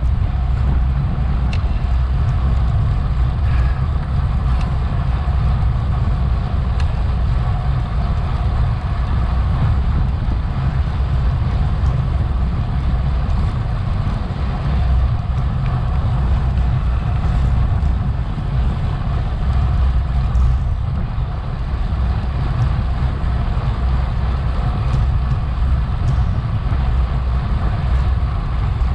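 Wind rushing over an action camera's microphone on a bicycle racing at speed: a loud, steady low rumble, with faint drivetrain and tyre noise above it.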